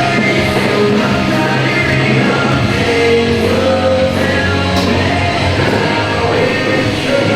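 Loud rock music with a singing voice, steady throughout.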